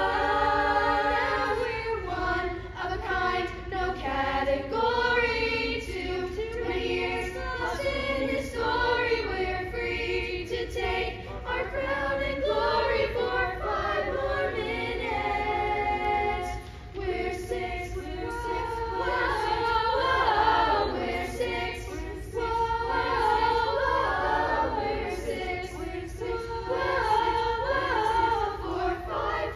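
Youth choir of mostly girls' voices singing an a cappella arrangement in several-part harmony, with no instruments.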